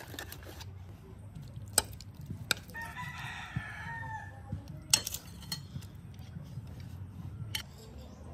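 A rooster crows once, a long call about three seconds in, with a few sharp clinks of spoons on plates scattered around it.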